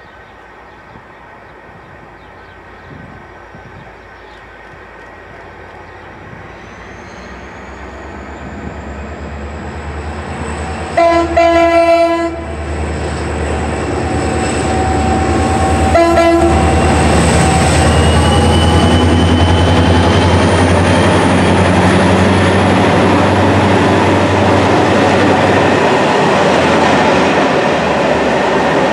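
A diesel-hauled freight train approaching and passing close by. The locomotive's engine grows steadily louder, and its horn sounds one long blast about eleven seconds in and a short blast about five seconds later. Then the engine and the wagons' wheels run loud and steady on the rails as the train goes by.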